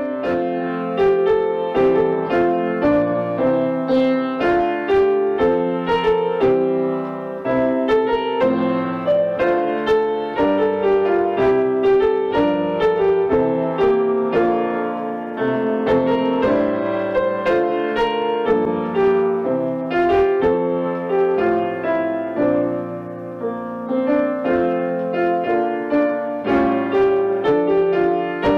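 Piano playing a steady, flowing run of chords and melody notes.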